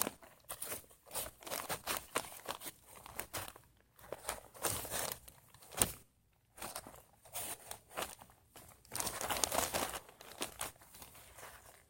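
Hands digging and scraping through loose garden soil while searching for potatoes: irregular scratchy rustling in bursts, with short pauses.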